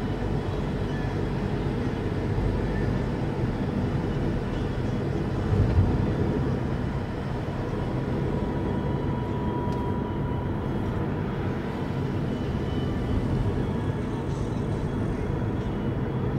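Car driving on a road: steady low road and engine noise, with a brief thump a little under six seconds in.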